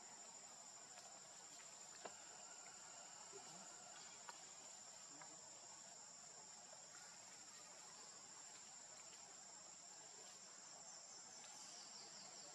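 Faint, steady high-pitched drone of insects in the forest, with a few soft clicks and a brief burst of rapid chirping near the end.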